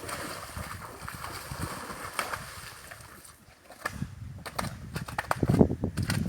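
Shallow river water running with an even hiss, then scattered sharp knocks and clicks over the last two seconds or so.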